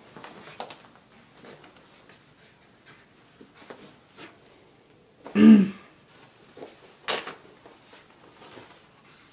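Wet dog rubbing and rolling on its back on carpet, making scattered soft scuffs. About halfway through comes a short, loud throaty sound that dips and rises in pitch. A sharp hissing burst follows about a second and a half later.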